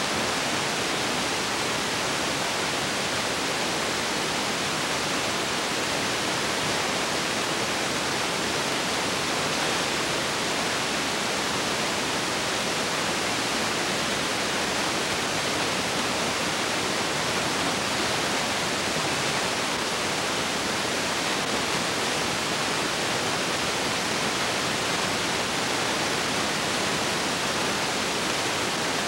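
Steady, even hiss of noise that does not change, with no other sound in it, typical of the blank soundtrack of a transferred old film.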